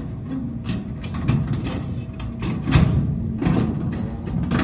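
Sheet-metal rattling and scraping: a steel duct starter collar is pushed down into the hole in a rectangular duct and its fins are bent back against the duct. The knocks come irregularly, with the loudest about three seconds in.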